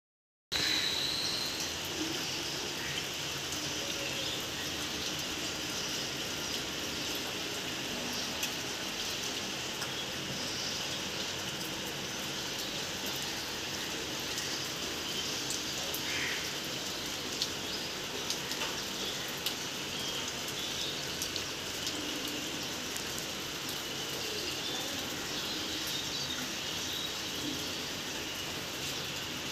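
Steady rainfall, an even hiss with scattered drips. A few bird chirps come through now and then.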